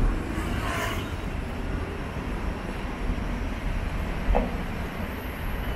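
Hong Kong double-decker tram running, heard on board: a steady low rumble and rattle, with a short high squeal in the first second and a knock about four seconds in.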